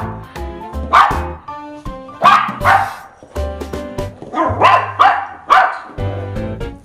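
West Highland white terrier puppy barking in short, sharp barks, about seven in all, coming in ones and quick pairs over background music.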